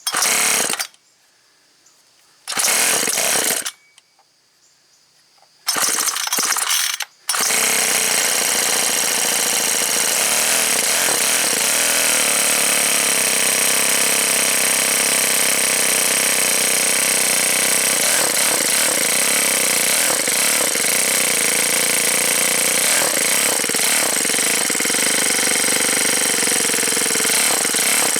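Ryobi S430 four-stroke string-trimmer engine being pull-started: three short bursts about a second long, and on the third it catches and keeps running steadily.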